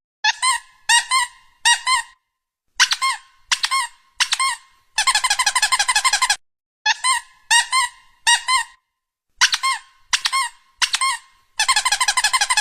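Squeaky-toy squeaks in quick runs: short clusters of three or four high squeaks, and twice a longer rapid string of a dozen or so, with silent gaps between.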